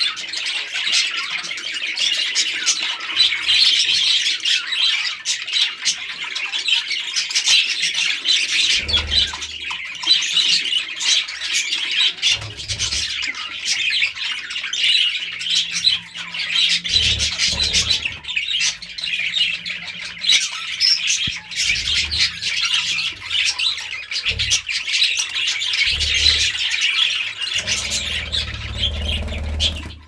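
Budgerigars chattering, chirping and squawking without a break, with a few low bumps now and then.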